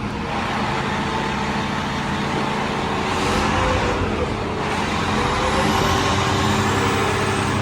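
Fire truck's heavy diesel engine running with a steady rush of noise that grows slightly louder partway through. A faint high whine rises slowly near the end.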